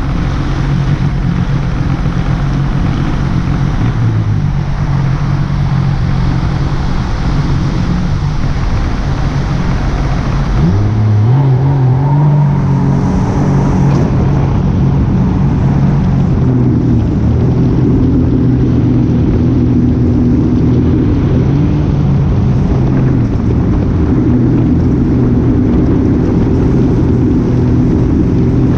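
A vehicle engine running steadily, its pitch rising about eleven seconds in as it speeds up, then holding at a higher, steady note.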